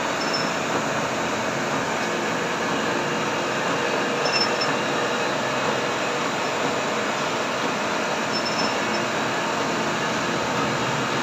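Gear shaper machine running steadily, its reciprocating cutter shaping the teeth of a 6-module pinion gear.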